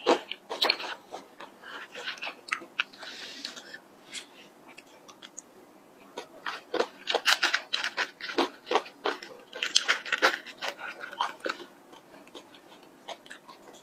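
Eating sounds: chewing and crunching a mouthful of almond-topped chocolate ice cream, with sharp clicky crunches and wet mouth sounds. The crunching comes in bursts, busiest at the very start and again from about six to eleven seconds in.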